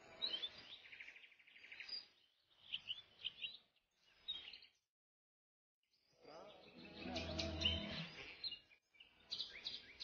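Juvenile cuckoo begging: bouts of high, quick chirping calls broken by short silences, with a lower, noisier stretch a little past the middle.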